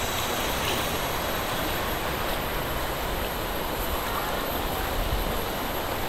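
River water rushing over rocks: a steady, even rush of flowing water.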